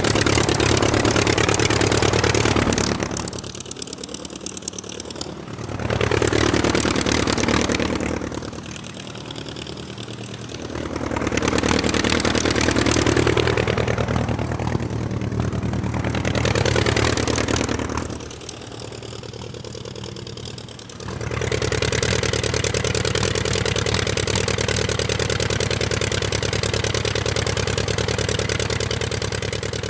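Propeller aircraft engine running loudly and steadily. It drops away three times, with the pitch sweeping down and then back up, before running steadily again.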